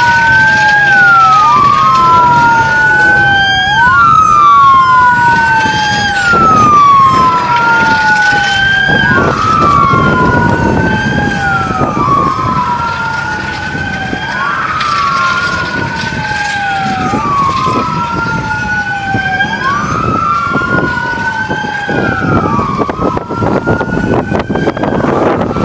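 Police car sirens wailing, the pitch sweeping up and down about every two and a half seconds. The sirens grow weaker near the end.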